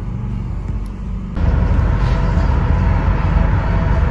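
Car on the road: steady low engine and road rumble, which steps up suddenly to a louder, fuller road noise about a second and a half in.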